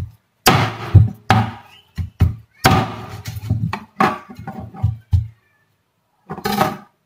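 Meat cleaver chopping raw boneless chicken breast on a wooden cutting board: about a dozen sharp chops thudding into the board, roughly two a second, stopping a little after five seconds, with one more short knock near the end.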